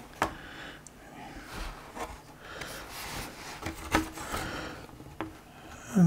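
Laptop bottom cover being handled while held partly open: soft rubbing and scraping of the panel, with a few light clicks, the sharpest about four seconds in.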